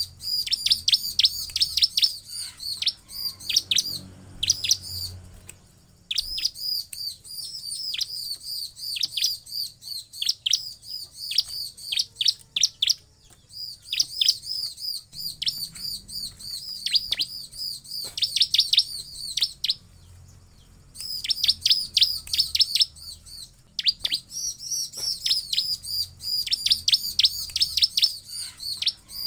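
Bar-winged prinia (ciblek) calling in rapid runs of sharp, high chirps, in phrases a few seconds long with short pauses between them. It is a recorded call played as a lure to set other ciblek singing.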